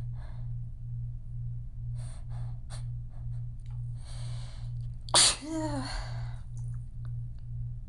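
A woman sneezes once, loudly, about five seconds in, after a long drawn-in breath. It is one sneeze in a sneezing fit. The sneeze trails off in a breath out that falls in pitch.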